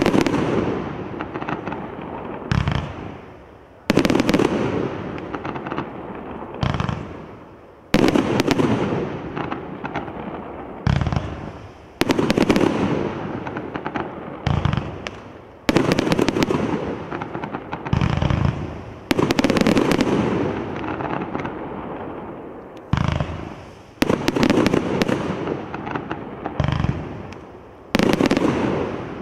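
Primed Pyrotechnics Flashy 80-shot compound barrage firing. A low thump of shots launching is followed about a second later by loud bangs of breaking shells, each fading out in a long crackle, and the pattern repeats roughly every four seconds.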